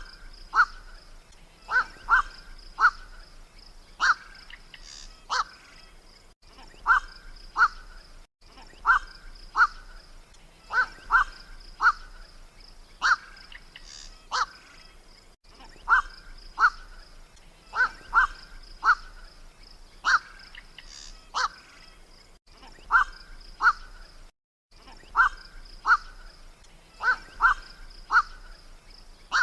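Night heron (kowak-malam) giving short, harsh 'kwok' calls, repeated every second or two, often in quick runs of two or three, over a steady high-pitched buzz.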